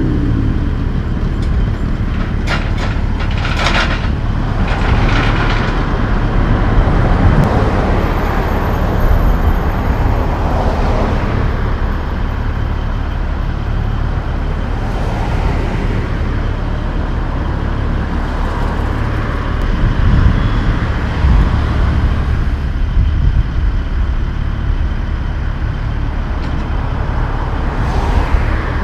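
Heavy truck's diesel engine idling with a steady low rumble. A short run of sharp clicks comes about three seconds in.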